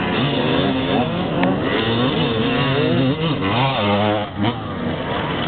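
HM CRE 250 enduro motorcycle pulling away from the start, its engine revving up and rising in pitch several times as it goes up through the gears.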